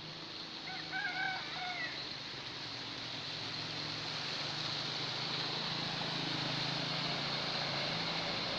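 A rooster crows once about a second in. Then the engine of a truck and a motorcycle driving through floodwater, with the rush and splash of water, grows steadily louder as they come closer.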